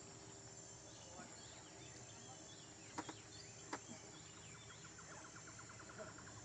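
Faint natural ambience of birds, insects and a frog: small birds chirping, a steady high insect whine, and two sharp clicks about three seconds in. From about five seconds a frog gives a rapid pulsing call.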